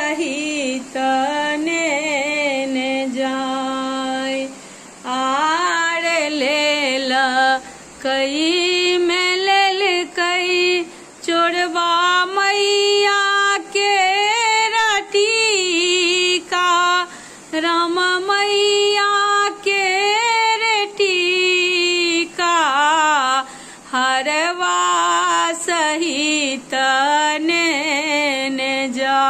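A woman singing a Maithili samdaun, a farewell song to the goddess Bhagavati, solo voice with no instruments, in long held, wavering phrases separated by short breaths.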